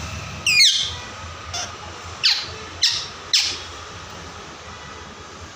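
Pet parrot squawking: about five short, harsh calls in quick succession, each dropping sharply in pitch, stopping about three and a half seconds in.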